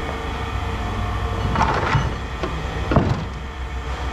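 Two knocks or clatters, about a second apart, over a steady low rumble.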